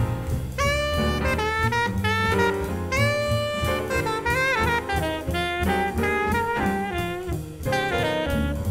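Background music: a jazz tune with a horn melody over bass and drum kit.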